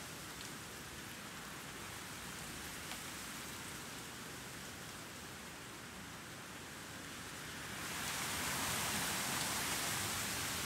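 Breeze with a very light city noise underneath: a steady, soft wind hiss that swells into a stronger, brighter gust about eight seconds in.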